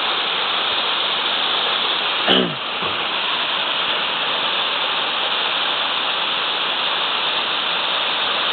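Steady rushing of a waterfall, two streams of water falling over a cliff into a pool. About two seconds in, a short sound sweeps quickly down in pitch over the rush.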